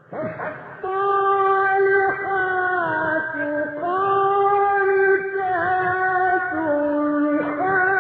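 A man's voice chanting Quran recitation in the melodic Egyptian mujawwad style. Long held notes glide between pitches with wavering ornaments. The chanting starts abruptly and continues without a break.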